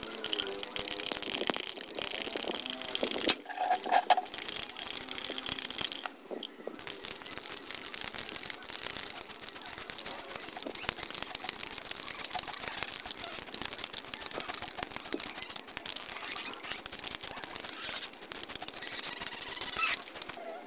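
Aerosol spray paint can hissing steadily in long sprays, broken by a short pause about six seconds in.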